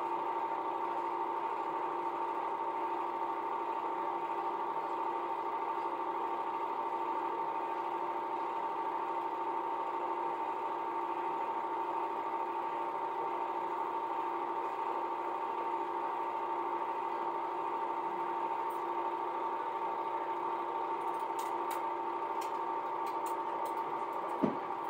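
Home-movie film projector running with a steady mechanical whirr and hum. Near the end a few faint ticks and a single thump come as the film runs out and the screen goes to blank light.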